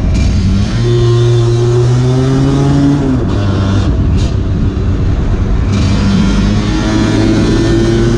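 Lambretta two-stroke racing scooter engine under hard throttle, its pitch climbing through a gear, easing off about three seconds in and climbing again from about six seconds, with wind rushing over the onboard microphone.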